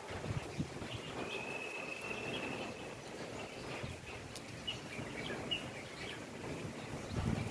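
Wild birds calling: one long steady high whistled note held for nearly two seconds, then a few short high chirps. Low steady background noise runs beneath.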